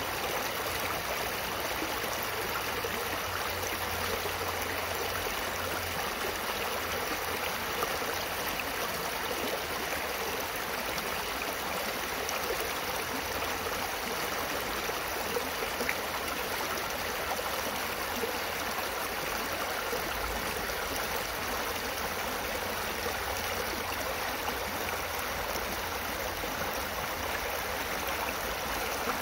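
Shallow rocky stream flowing over and around boulders: a steady, even rush of water.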